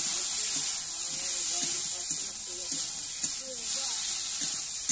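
Freshly added raw green mango pieces frying in hot oil and spice paste in a steel kadai, a steady loud sizzling hiss.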